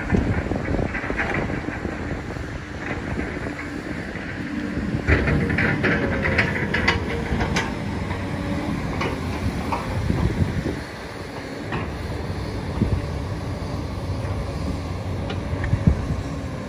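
Demolition machinery rumbling while a building is torn down, with a run of sharp clanks and crunches of breaking material about five to eight seconds in and a few single knocks later.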